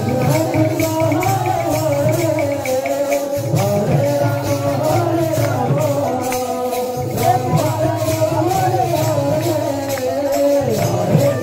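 Devotional kirtan music: a wavering sung melody with jingling hand cymbals keeping a steady beat.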